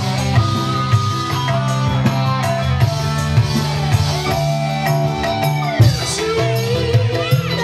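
Live dangdut band music, loud and steady: an electronic keyboard melody with held notes over bass and drums. Near the end a woman's voice comes in singing.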